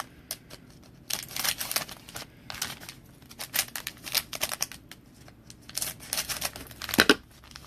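Foil trading-card pack wrappers crinkling and tearing as packs are opened by hand, in several short bursts of crackly rustling.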